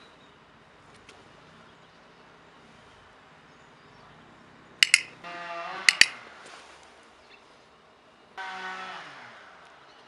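A training clicker is pressed twice, about a second apart, each press a sharp double click, marking a rabbit's jump over the handler's foot. Between the clicks and again near the end, a droning tone with several overtones comes and goes, falling slightly as it fades the second time.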